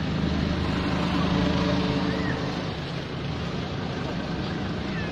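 A motor vehicle's engine running steadily nearby, a low hum that grows louder in the first half and fades away after about three seconds.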